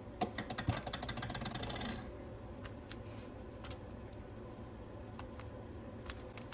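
Small tools clicking and scraping against the opened iPad Pro's internals for about two seconds, then a few scattered light ticks: a battery isolation tool being worked in to disconnect the battery.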